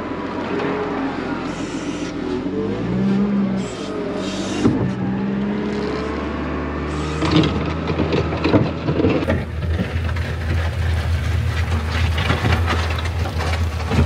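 Wheel loader's diesel engine running and revving, its pitch rising and falling. From about nine seconds in it is joined by a run of clanks and knocks.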